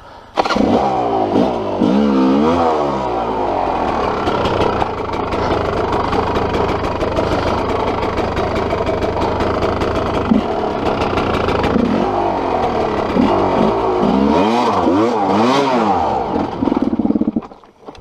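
Dirt bike engine, coming in abruptly and revved up and down in repeated throttle blips, with steadier running in between, then dropping away suddenly near the end.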